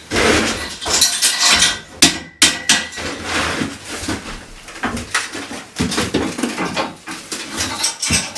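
Irregular metallic clanks and knocks as steel Acrow props and hand tools are handled and struck around a steel beam.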